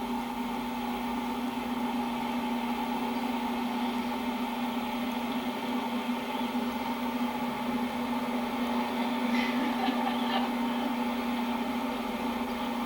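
Steady engine and road drone inside a moving car, holding one constant pitch. A few faint high squeaks come through about nine to ten seconds in.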